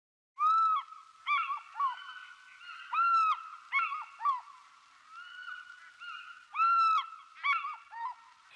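Geese honking: a series of loud, arched honks repeated every second or so, with shorter calls overlapping in between.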